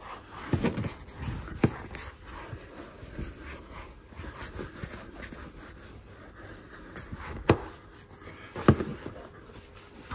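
Microfibre cloth rubbing and wiping over coated seat upholstery, buffing out a freshly dried ceramic coating. There is a low rustle throughout, with four louder swipes or bumps, two near the start and two near the end.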